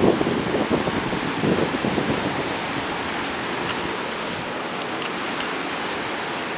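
Steady rush of river water running through narrow rock channels, with a few light knocks in the first couple of seconds.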